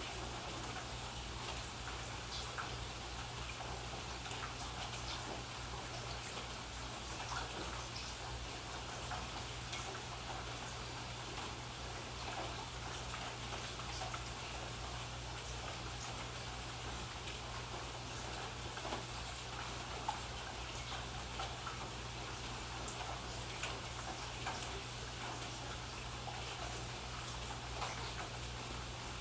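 Steady rain with individual drops ticking and dripping on a surface, over a low steady hum.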